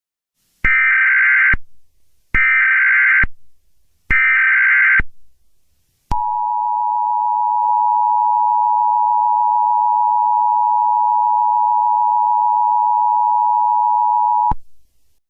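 Emergency Alert System tones: three short bursts of the warbling SAME header data tones, each about a second long, then the two-tone EAS attention signal (853 and 960 Hz) held steadily for about eight seconds and cut off suddenly. The tones signal that an emergency message is about to be broadcast.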